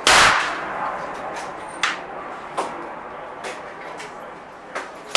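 A Smith & Wesson Model 25 revolver with a 6.5-inch barrel fires a .45 Colt handload: one loud shot with a short echoing tail. A few fainter sharp cracks come in between, and the next shot goes off right at the end.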